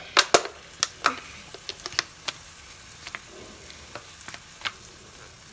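Pancake batter sizzling on a hot pan as it is scraped out of a bowl with a spatula and dropped in. A steady hiss runs under a scatter of sharp clicks from the spatula knocking against the bowl, most of them in the first couple of seconds.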